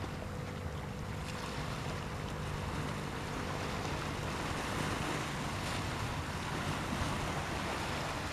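Steady seaside ambience: wind buffeting the microphone over the wash of the sea, with a low steady hum underneath.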